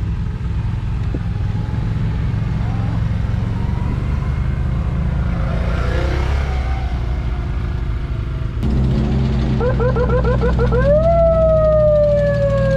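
A vehicle engine running steadily, louder from about nine seconds in. An electronic siren then sounds: a run of quick rising chirps, followed by a long tone that rises and then slowly falls.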